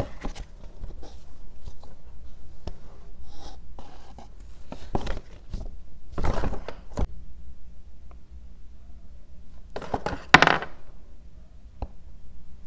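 Hands leafing through and unfolding a paper instruction leaflet: paper rustling with light taps and clicks of handling, and a louder rustle late on.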